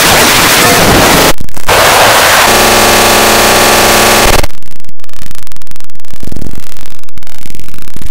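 Heavily distorted, clipped digital audio: loud static-like hiss, cut off briefly about a second and a half in, then a harsh buzzing tone from about two and a half seconds, giving way near halfway to a dense, bass-heavy distorted din.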